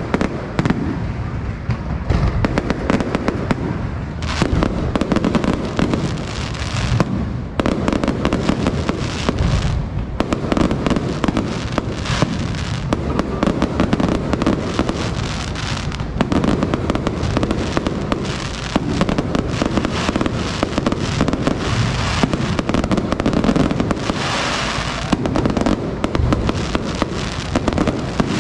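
Fireworks display: a dense, continuous barrage of bangs and crackling, going on without a break.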